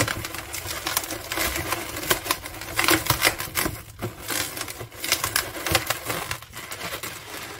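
Inflated 260 latex modelling balloons squeaking and rubbing under the hands as one is wrapped around the other and twisted to lock it in place: a dense, irregular run of short squeaks and creaks that thins out near the end.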